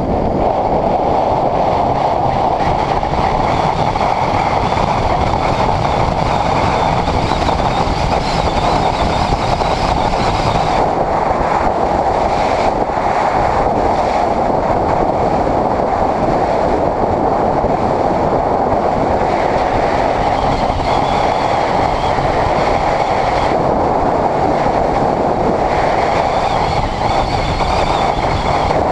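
Steady rush of wind and road noise over a Honda CBR600RR's inline-four engine at a constant cruising speed, heard from a camera mounted on the moving motorcycle.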